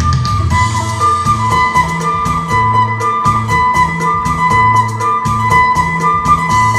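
Isan phin, a three-string plucked lute, played in lively lam phloen style over a backing track with a steady beat, a repeating bass line and a high sustained drone.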